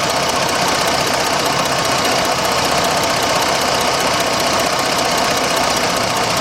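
2006 Jeep Grand Cherokee's 3.7-litre V6 engine running steadily, its cylinder 3 misfire now gone.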